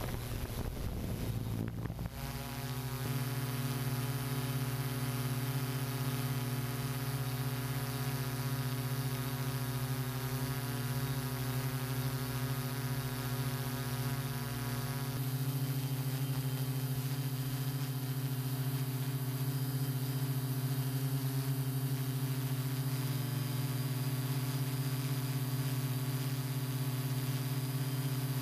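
Multi-rotor drone's electric motors and propellers, a steady whirring hum of several layered tones. The sound is rougher for the first couple of seconds, then settles into steady tones, and the mix of tones shifts about halfway through as the rotor speeds change.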